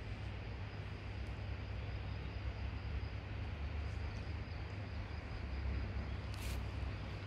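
Steady outdoor background noise: a low rumble with an even hiss above it, and one brief faint click about six and a half seconds in.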